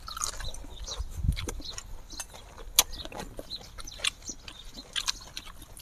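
Close-miked eating sounds: wet chewing, lip-smacking and scattered mouth clicks from people eating octopus and instant noodles, with a low thump a little past a second in.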